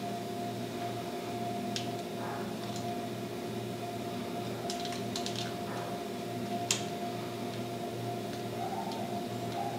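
Large Motherdrum, a big frame drum on a wooden stand, sounding a low steady drone made of several held tones, with a soft even pulse beneath it. A few light clicks and one sharp tick about two-thirds of the way through sit on top.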